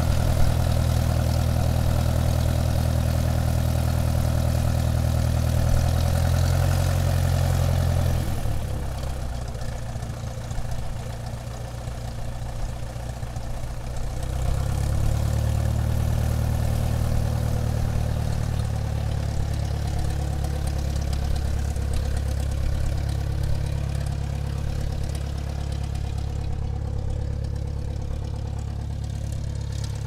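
Airplane engine running with a steady low hum. The engine note drops away about eight seconds in, comes back up around fifteen seconds, then slowly fades.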